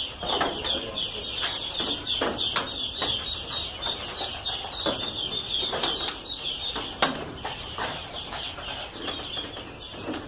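A flock of ducklings peeping continuously in a dense, high-pitched chorus of many short falling peeps. Scattered knocks and taps sound through it, the sharpest about seven seconds in.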